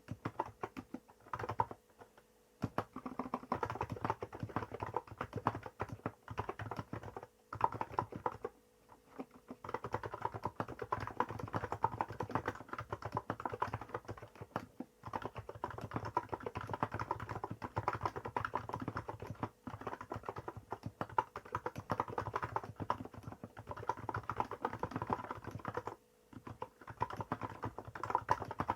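Continuous typing on a Hansung GK868B electrostatic capacitive keyboard with 50 g switches and Apple-style keycaps: a dense run of keystrokes, broken by a few short pauses.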